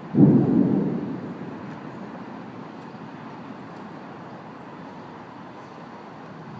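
A sudden clap of thunder just after the start, fading away over about a second and a half, over a steady hiss of storm wind.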